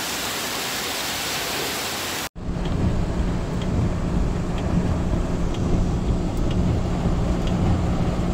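Heavy rain pouring onto a paved street, a steady hiss. About two seconds in it cuts to the inside of a car driving through a flooded street: a louder low rumble of engine, tyres in water and rain, with a faint tick about once a second.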